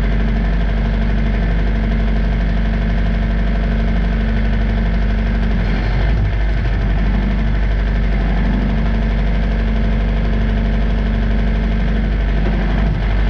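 Wood-Mizer bandsaw mill's engine running steadily under the hydraulic log loader as the loader arms lift a log onto the bed. A short knock comes about six seconds in and another near the end.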